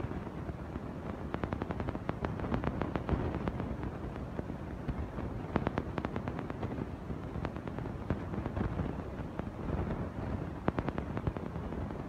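Building-site work noise: a steady low rumble with repeated quick bursts of sharp clicking and rattling.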